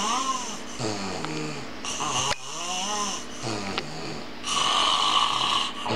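A man snoring loudly, with a quick run of pitched, droning snores one after another, then a louder, hissier snore about four and a half seconds in that lasts about a second.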